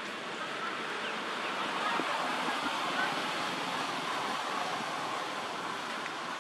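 Steady outdoor background hiss with a few faint, short chirps scattered through it.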